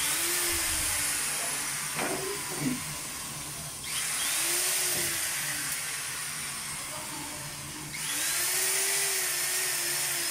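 Electric power drill running, its motor pitch sagging and recovering as it works, with louder spells starting about 4 and 8 seconds in.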